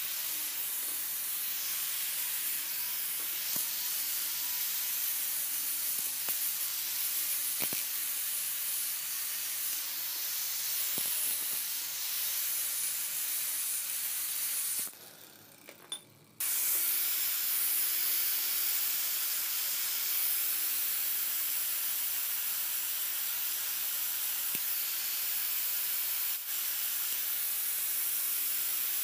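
A steady hiss, strongest in the high range, with a faint low hum and a few light clicks. It drops out suddenly for about a second and a half about halfway through, then resumes.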